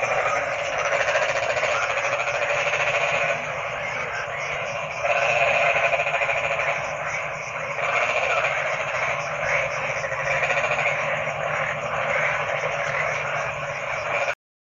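A dense chorus of many frogs croaking together, a thick rapid pulsing that swells and dips in blocks, then cuts off suddenly near the end.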